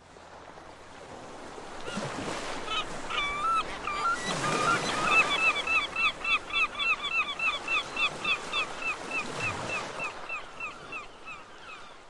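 Surf washing on a shore, with a gull's call: a long run of rapid, evenly repeated yelping notes, about three a second, fading out near the end.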